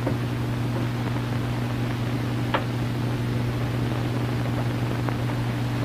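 Steady hiss and low hum of an early-1930s film soundtrack, with no dialogue, and a single faint click about two and a half seconds in.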